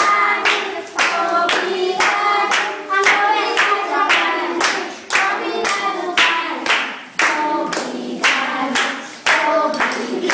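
A group of children singing a song together in unison, clapping along in a steady rhythm.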